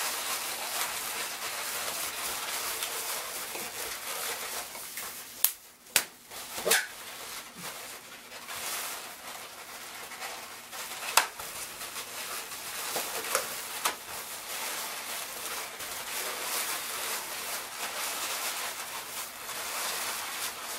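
Latex 260 modelling balloons rubbing and squeaking as they are twisted and worked into a figure. A few short, sharp squeaks come about six seconds in and again between eleven and fourteen seconds.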